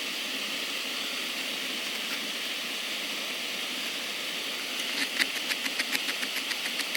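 Camping gas stove burner hissing steadily, heating water for a pot noodle. A quick run of light clicks comes in over the last two seconds.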